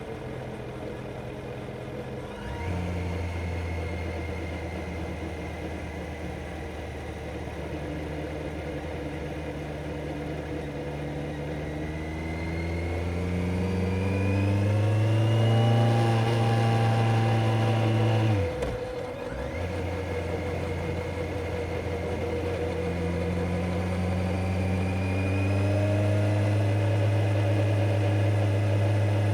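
Kawasaki Z900's inline-four engine pulling through the gears, its note climbing steadily with the revs. It breaks off sharply about two seconds in and again after about eighteen seconds, at each upshift, and comes back lower before climbing again.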